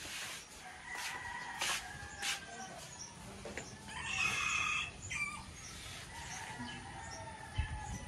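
A rooster crowing once, about four seconds in, over faint background with a few light clicks.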